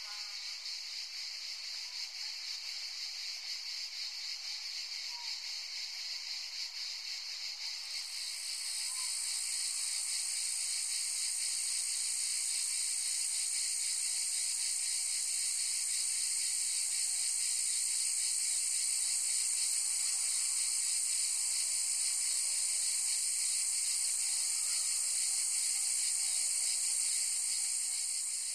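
Steady high-pitched hissing noise with no low end; a brighter, higher layer joins about eight seconds in and it grows slightly louder.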